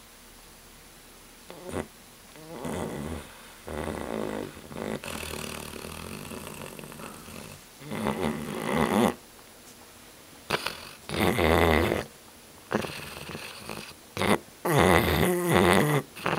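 Chocolate Labrador retriever snoring loudly in its sleep: a run of about nine snores at uneven intervals, some short and some over a second long, the later ones louder.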